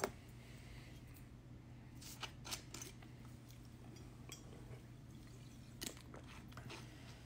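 Glass bottle being handled and drunk from: a sharp click at the start, then scattered small clicks and taps as the green glass bottle is raised to the mouth and lowered again, over a steady low hum.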